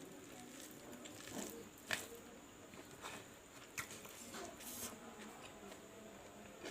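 Close-miked eating sounds: chewing and wet mouth squishes with a few short sharp clicks.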